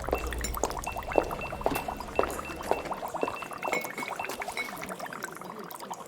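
Laboratory ambience: glassware clinking and liquid pouring and bubbling, over thin electronic tones and a low equipment hum that stops about halfway through.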